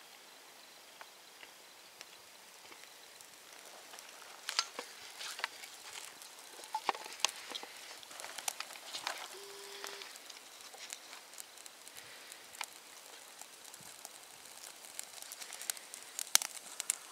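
Small fire of dry leaves on birch bark catching, with irregular sharp crackles and pops that grow more frequent from about four seconds in. A short steady tone sounds briefly near the middle.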